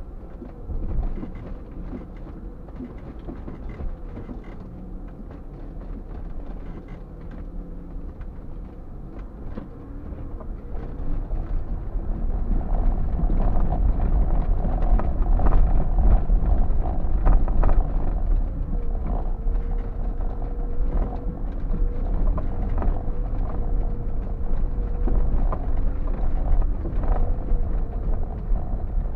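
4x4 driving slowly over a rough stony track, heard from inside the cab: low engine and tyre rumble with frequent creaks and knocks from the body and suspension, getting louder about twelve seconds in.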